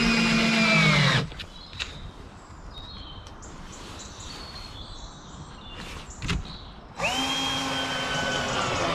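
Cordless drill-driver motor running at a steady pitch, then winding down about a second in. A couple of knocks follow in a quieter stretch, and near the end the drill spins up again for about two seconds, driving screws into plywood, before winding down.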